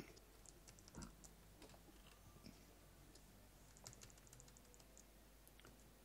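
Faint clicks of a computer mouse and keyboard over low room tone, in small clusters about a second in and again around four to five seconds in.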